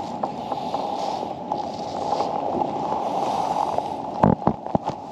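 Steady gurgling water noise around a pedal kayak, then a quick cluster of sharp knocks and rubs about four seconds in as a hand handles the camera.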